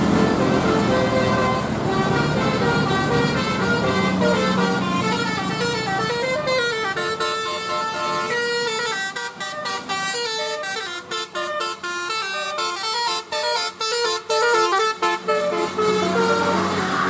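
Bus 'telolet' horn, a set of air horns playing a quick melody of stepped notes. In the second half the notes become short and clipped, with brief breaks between them.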